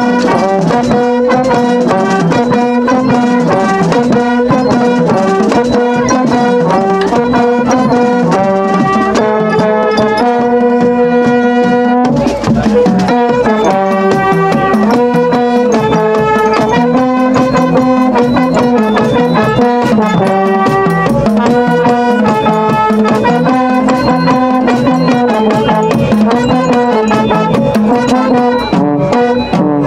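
Marching band of euphonium, saxophones and trumpets playing a tune together, with marching snare drums keeping a steady beat.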